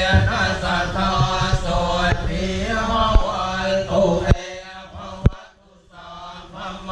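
Buddhist monks chanting a blessing in unison on a steady low pitch, amplified through a microphone. About two-thirds in, the chant stops for a moment with a few sharp knocks, then picks up again at the end.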